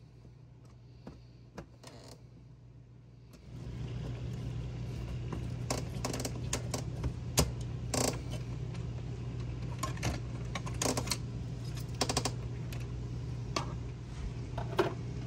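Screwdriver and metal latch parts clicking and clinking as the inside cover plate of a trailer door latch is unscrewed and taken off. A steady low hum comes in about three seconds in and carries on under the clicks.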